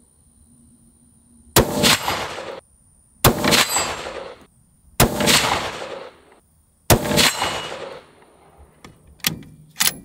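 Four rifle shots from a Black Creek Labs MRX Bison bolt-action 5.56 rifle, spaced about a second and three-quarters apart, each ringing out for about a second. Near the end come several short sharp clicks as the bolt is worked.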